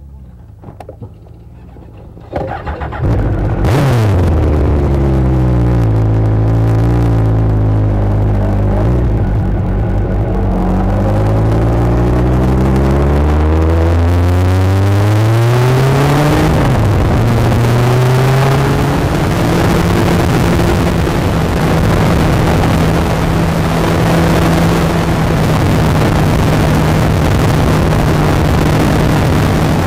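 Kawasaki ZX14 sport motorcycle's inline-four engine. It comes in loudly about two seconds in and changes pitch up and down through the next dozen seconds, then holds a steady pitch through the last third.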